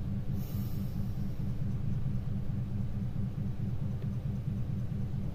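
Steady low background rumble, with a short hiss about half a second in.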